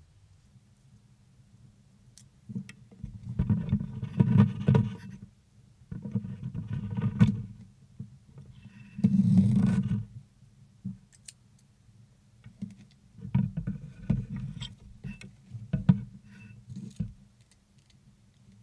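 A cardboard shipping box handled and opened by hand: irregular bouts of cardboard scraping and rustling, with a steadier one-second rasp about nine seconds in.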